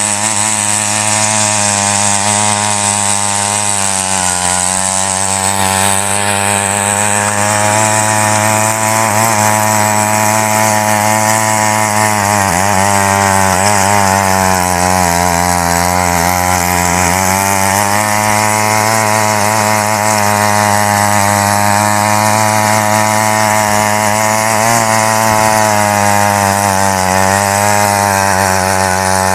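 Small petrol engine of a mini weeder (power tiller) running hard as its rotating tines churn through loose soil, the engine note sagging briefly several times as the tines take more load.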